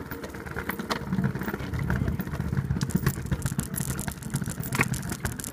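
Stunt scooter wheels rolling over pavement: a steady low rumble with scattered clicks and rattles.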